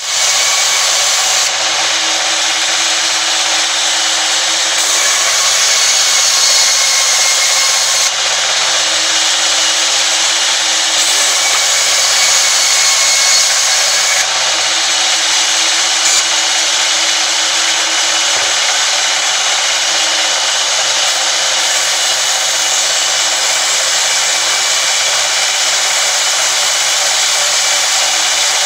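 Sawmill band saw ripping a long wooden plank lengthwise as it is fed past the blade: a loud, steady sawing noise.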